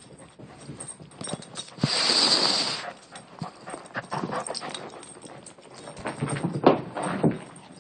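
A dog running and scrabbling on carpet during a game of fetch, its paws and claws thudding and scuffing in quick uneven steps. About two seconds in there is a loud rushing noise lasting about a second, and there are heavier knocks near the end.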